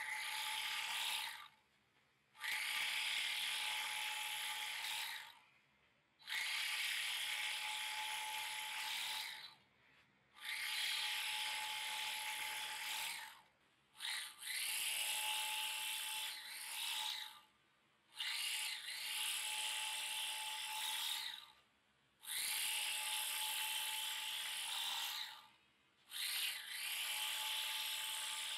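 Revo DA portable bag closer, a single-needle, single-thread chain-stitch sewing machine, running in runs of about three seconds with short stops between as it sews woven sacks shut. Its motor gives a steady whine under a busy mechanical rattle from the needle and feed.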